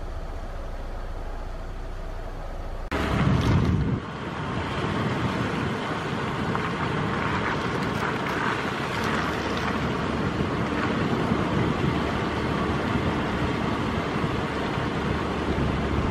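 A car's engine and cabin hum run steadily at first. About three seconds in there is a sudden loud rumble lasting about a second, and after it a rough, steady rushing noise.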